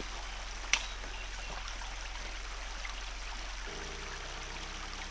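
A stream flowing with a steady rushing sound, and a single sharp click about a second in.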